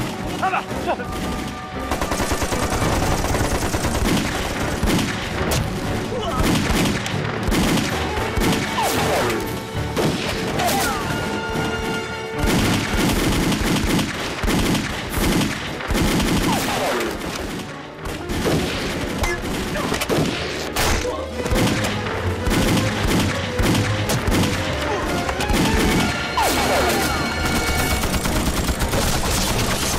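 Dense, near-continuous battle gunfire, many shots in rapid succession from several guns, with a brief lull about eighteen seconds in.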